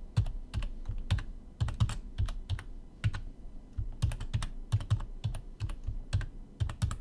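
Typing on a computer keyboard: a fast, irregular run of key clicks as a password is entered.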